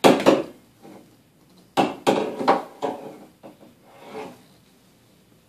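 A broom sweeping a hardwood floor, its head scraping and knocking against the boards in short strokes: one at the start, then a quick run of about four near the middle.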